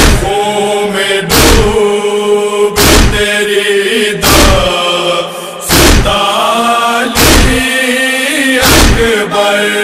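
Male voice chanting a noha, a Shia lament, in long held, wavering notes. A deep thump about every one and a half seconds keeps time.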